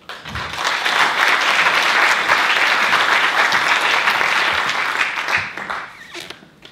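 Audience applauding. The clapping starts at once, holds steady for about five seconds, then dies away near the end.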